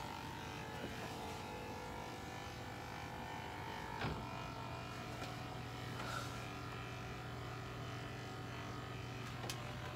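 Quiet steady low hum of room tone, with a few light knocks and clicks as a handheld laser level is set and pressed against a drywall wall; the clearest knock comes about four seconds in.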